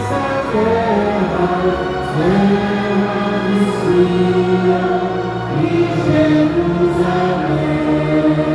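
Slow worship song sung by a group of voices, holding long notes that change pitch every second or two.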